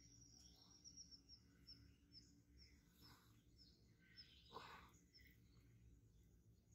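Near silence with a bird faintly chirping: a run of short high chirps, about two a second, dying away about five seconds in.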